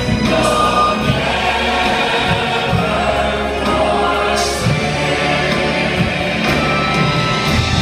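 A church choir and congregation singing a gospel worship song together, loud and steady, over sustained low instrumental accompaniment.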